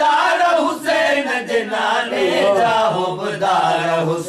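Men's voices chanting a devotional naat in praise of Husayn, the melodic line rising and falling.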